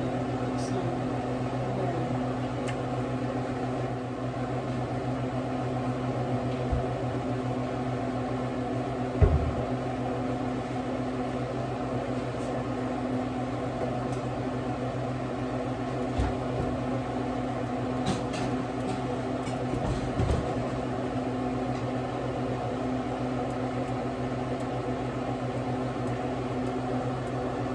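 A steady low electrical hum with a few even overtones, from a running kitchen fan or appliance motor. A few soft knocks come through it, the most distinct about nine seconds and twenty seconds in.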